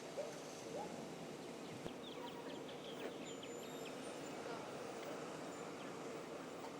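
Outdoor ambience: a steady hum, with a quick run of faint bird chirps a couple of seconds in and a few short calls near the start.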